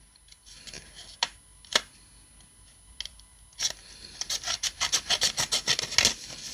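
Small paper packets and packaging being handled: a few light taps at first, then from about three and a half seconds in a quick, busy rustling and crinkling as the packets are picked up and opened.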